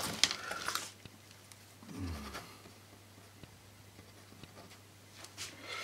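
A sharp tap and a short scrape of paper at the start, then faint scratching of a pen writing on paper. A brief low hum of a voice comes about two seconds in.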